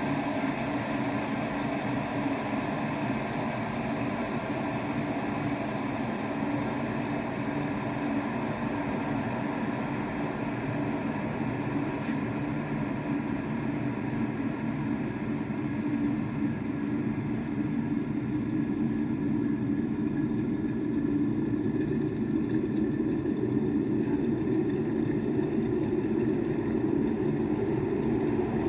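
Glass electric kettle heating water: a steady rumbling hiss that grows somewhat louder over the last several seconds as the water heats.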